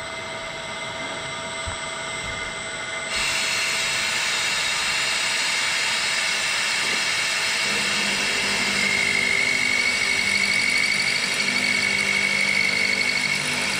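Bridgeport milling machine running with the cutter taking a cut. About three seconds in it gets suddenly louder and brighter, and in the second half a high whine rises over an uneven lower rumble of the cut.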